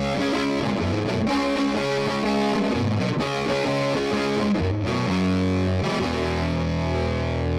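Electric guitar played through a distorting effects-plugin preset, picking a changing line of notes, then letting a chord ring on near the end.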